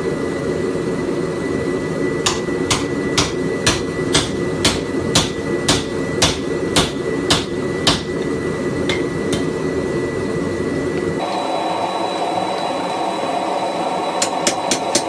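Hand hammer striking a chisel to cut through metal stock at the forge: a run of sharp ringing blows about two a second, a pause, then a few quicker blows near the end.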